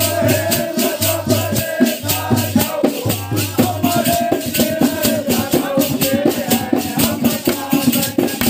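Men singing a Holi faag folk song together, with a rope-tensioned barrel drum and metal jingles keeping a fast, steady beat.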